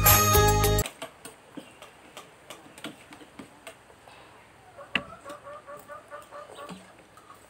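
Bollywood-style music that cuts off about a second in, followed by faint scattered clicks of forks on plates as people eat noodles. A short run of quick repeated high calls comes in just after the middle and lasts about two seconds.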